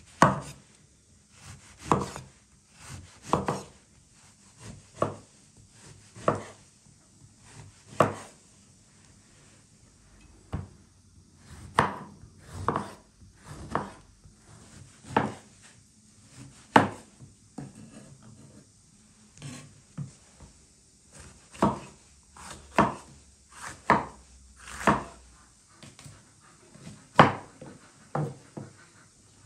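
Broad hammered-finish kitchen knife slicing an orange and then a yellow bell pepper, each cut ending in a knock of the blade on a wooden cutting board. The strokes come one at a time at an unhurried, uneven pace, about one a second.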